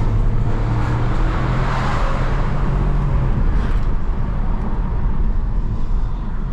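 A car driving: a steady engine hum over constant road noise. The hum steps up in pitch about a second and a half in and fades out after about three seconds.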